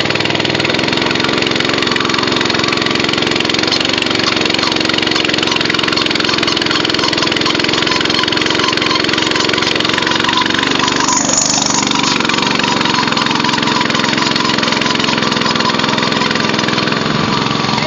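Small gasoline engine of a motorized raft running steadily at an even pitch as it pushes through flood water. A brief hiss rises over it about eleven seconds in.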